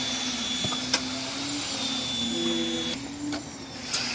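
Steady mechanical hum of a running motor, with a few sharp clicks; the higher hiss drops away briefly near the end.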